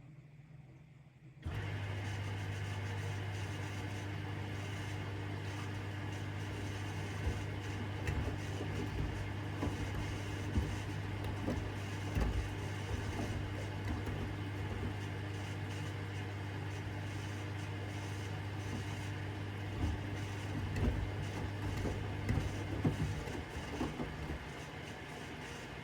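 AEG 8000 Series LR8FL160EX front-loading washing machine turning its drum in the wash phase: the motor starts about a second and a half in with a steady hum while the wet bath mats thump and slosh in the drum, and the motor stops near the end.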